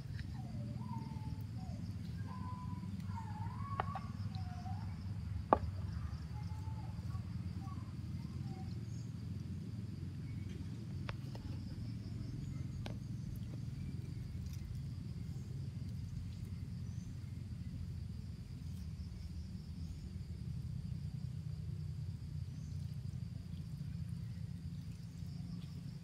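Outdoor ambience with a steady low rumble and a faint insect hum, a few bird calls in the first few seconds, and a handful of sharp knife clicks and taps on the stone as a catfish is scraped and cut, the loudest about five seconds in.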